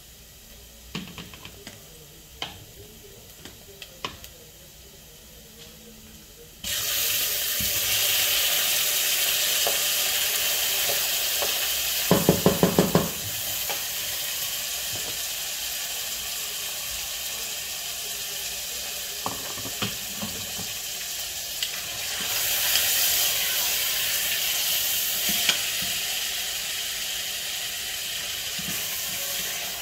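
Yoghurt-and-lemon-marinated lamb sizzling in hot oil and frying onions in a stainless steel pot. The sizzle starts suddenly about a quarter of the way in, when the meat goes into the pot, and carries on steadily, with a quick run of loud knocks around the middle. Before it there are only a few light clicks.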